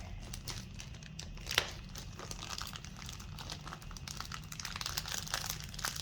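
Packaging crinkling and rustling as a bookmark is handled and unwrapped by hand, with a short sharp click about a second and a half in. The crinkling grows busier in the second half.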